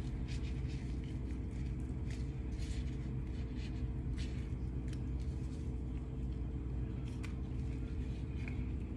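A steady low mechanical hum throughout, with faint crinkles and scrapes as gloved hands trim raw chicken with a knife.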